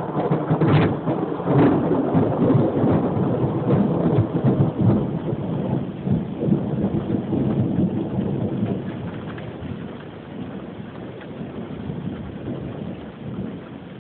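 Thunder rolling over steady rain, with a couple of sharp cracks in the first two seconds; the rumble dies away over the last several seconds, leaving the rain.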